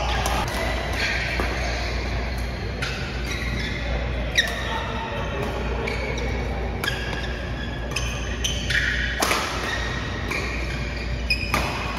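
A badminton rally: sharp racket strikes on the shuttlecock every two seconds or so, ringing in a large hall, with short high squeaks of court shoes on the mat between the hits.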